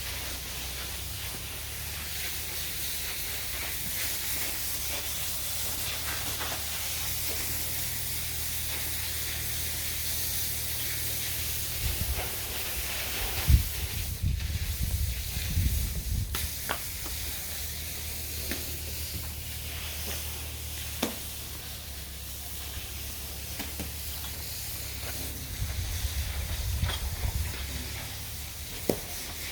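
Water spraying from a hose makes a steady hiss over a low, steady hum. Irregular knocks and rougher, louder splashing come about halfway through and again near the end.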